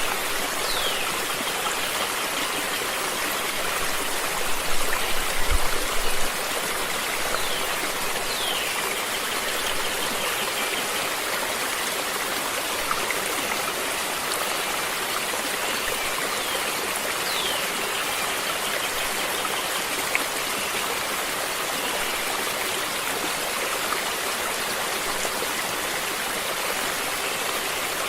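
Water in a stream flowing steadily, an even rushing with no pauses. A few short, high, falling chirps sound over it, and there is a brief low thump about five seconds in.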